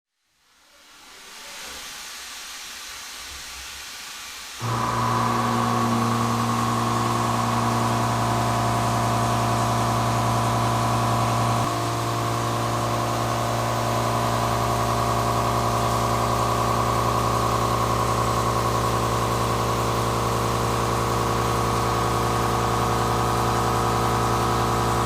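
Soft hiss, then about four and a half seconds in a steady machine hum with several held tones starts suddenly and runs on evenly.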